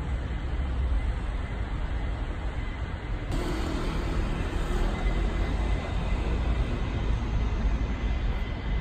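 Outdoor street ambience on a campus road: a steady noise with a strong low rumble from traffic and air moving past the phone's microphone. The tone of the noise changes suddenly about three seconds in.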